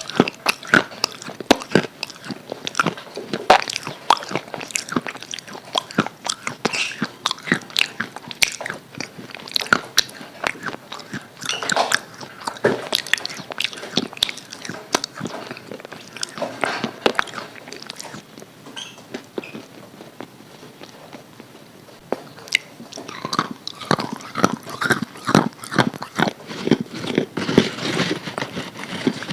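A person biting and chewing crispy KFC fried chicken, the coating crunching and crackling in quick irregular bursts. There is a short quieter lull about two-thirds through, then the crunching picks up again.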